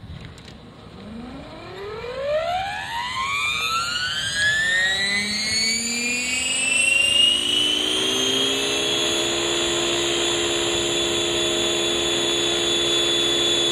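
Radio-controlled MD500 scale helicopter spooling up: the motor and rotor drivetrain give a whine that rises steadily in pitch for about seven seconds as the main rotor speeds up, then holds steady at full rotor speed.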